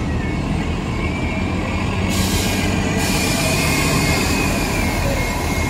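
Gillig low-floor city bus running as it pulls through a turn, with a thin high squeal over a low rumble. A rushing hiss comes in about two seconds in and carries on.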